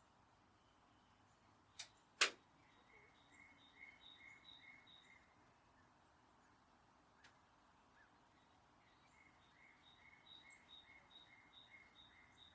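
Faint birdsong: a bird repeating a quick string of short high notes, about five a second, in two runs. Two sharp clicks about two seconds in are the loudest sounds.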